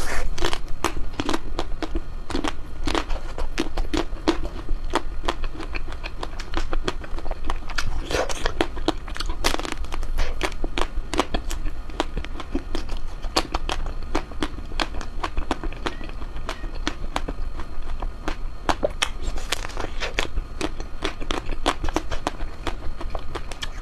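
Close-up chewing and biting of ice cream: a dense, irregular run of sharp crackles and wet clicks from the mouth, over a steady low hum.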